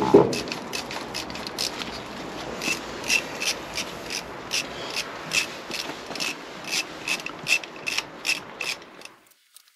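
Hand ratchet wrench clicking about three times a second over a steady scraping as it backs out the engine-cover screws; the clicking stops abruptly about nine seconds in.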